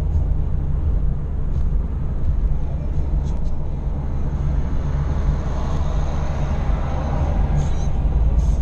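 Car on a motorway heard from inside the cabin: a steady low rumble of engine and tyres, with a swell of tyre hiss in the second half as a van draws alongside.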